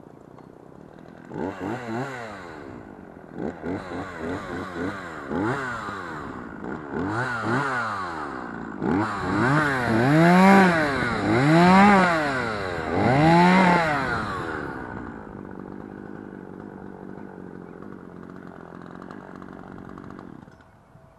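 Chainsaw engine revved repeatedly, first in short blips, then in three long rises and falls, before settling to a steady idle that cuts out near the end.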